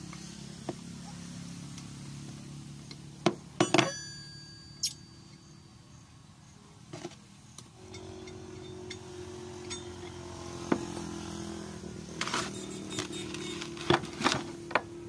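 Steel plates and bracket of a Sinotruk Howo dump truck's rubber damper being worked apart by hand: scattered metal clinks and knocks, one ringing clink about three and a half seconds in and a cluster of clinks near the end, over a low steady hum.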